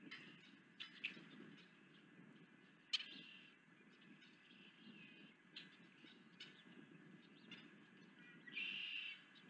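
Osprey giving scattered short, sharp high chirps, the loudest about three seconds in, then a longer, louder call near the end, over a faint steady hiss.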